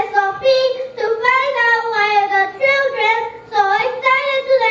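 Young children singing, with long held notes that bend gently in pitch.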